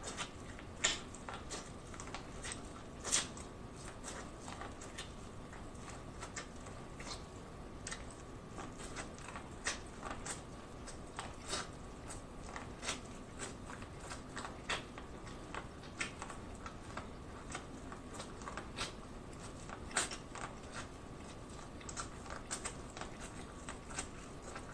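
Biting and chewing corn kernels off a boiled corn on the cob: a string of sharp, irregular crunching clicks as the kernels pop off the cob.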